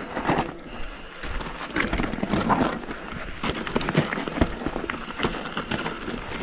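Mountain bike rolling downhill over a rocky trail: tyres crunching over loose stones and gravel, with frequent irregular clattering knocks as the wheels hit rocks and the bike rattles.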